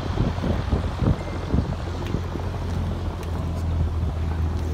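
An engine running steadily, a low continuous drone with an uneven rumble over it.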